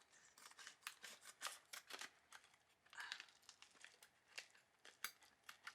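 Faint crinkling and small sharp clicks of gift packaging being handled and opened.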